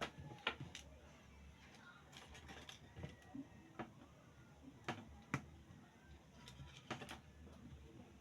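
Scattered small clicks and taps at irregular intervals, about a dozen, over a faint low hum.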